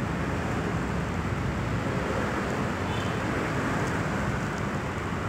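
Steady background noise of road traffic, an even rumble and hiss with no distinct events.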